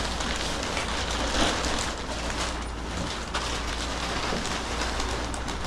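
Plastic mattress bag crinkling and rustling as a bagged mattress is lifted and flipped, with a steady low hum underneath.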